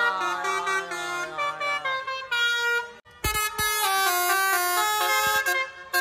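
Telolet multi-tone musical air horns playing a tune. In the first two seconds several notes sound together and slide downward. After a short break about three seconds in, a run of held notes steps downward.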